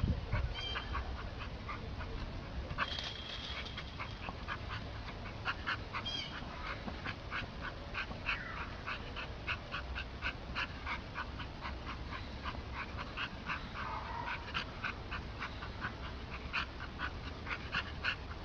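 A dog whimpering, with many short, high yips repeating a few times a second.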